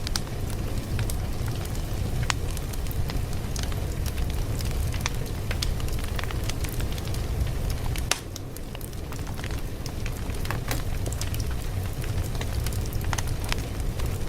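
Wood fire crackling: a steady low rumble with irregular sharp pops and snaps. The level drops suddenly about eight seconds in and builds back up over the next few seconds.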